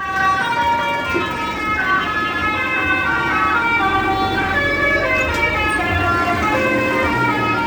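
Bus telolet horn, a set of multi-tone air horns, playing a tune of held notes that step from pitch to pitch without a break.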